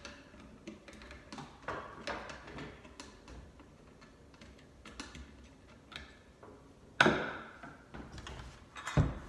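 Small clicks and taps of hand tools and parts being handled while the power cord is removed from a garbage disposal, with two sharper, louder knocks about seven and nine seconds in.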